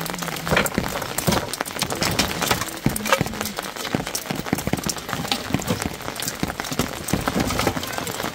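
Split firewood clunking and knocking as pieces are picked up from a woodpile and handled, a stream of irregular wooden knocks. Rain pattering steadily underneath.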